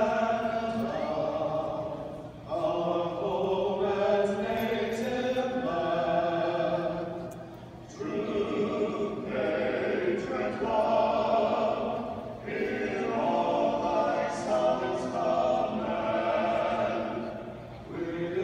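A vocal quartet singing a cappella in close harmony: sustained chords in long phrases, broken by short pauses every few seconds.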